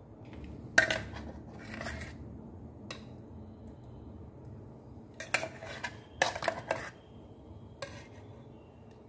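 Steel spoon scraping and clinking against the inside of a stainless steel mixer-grinder jar while scooping out thick blended chutney. Scattered strokes, with a cluster of sharper clinks a little past the middle.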